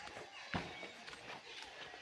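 Footsteps of someone walking, with one heavier step about half a second in.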